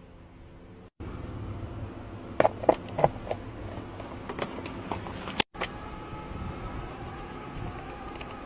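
Sharp metallic clicks and clinks of keys and locksmith tools being handled on a car, with a loud cluster about two and a half to three seconds in and another near five and a half seconds, over a steady low hum.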